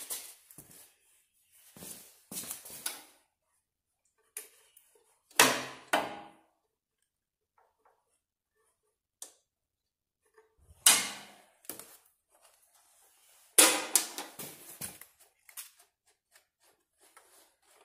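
Hand handling noises at a small engine as the spark plug lead is refitted after a spark test: scattered clicks, knocks and rustles with quiet gaps, the loudest about five, eleven and fourteen seconds in. The engine is not running.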